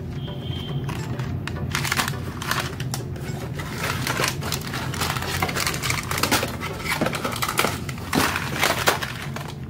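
Plastic snack wrappers and cardboard packaging crinkling and rustling in a dense, irregular run as hands pull packs out of a box and handle them, over background music.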